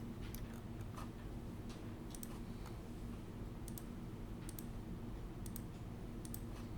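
Computer mouse and keyboard clicks while working in a drawing program, scattered short clicks about one or two a second over a steady low hum.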